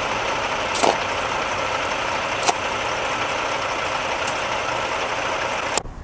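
Semi-truck engine idling steadily, with a couple of sharp knocks about a second in and midway through; the sound cuts off just before the end.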